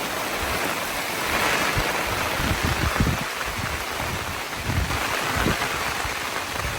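Heavy rain pouring down steadily, with low, uneven rumbles of wind buffeting the microphone.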